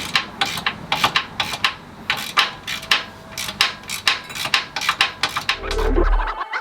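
Hand tools working on a car's engine mount bolts: a run of quick, uneven metallic clicks and knocks, several a second, with a short low hum near the end.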